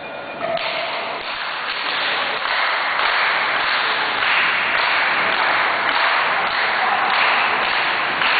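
Crowd applauding at a wrestling match, the clapping swelling about half a second in and then holding steady.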